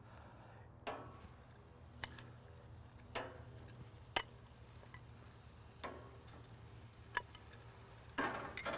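Metal grill tongs clicking against a gas grill's cooking grate as steaks are laid over high heat: sharp single clicks about once a second at uneven intervals, with a few close together near the end, over a faint steady low hum.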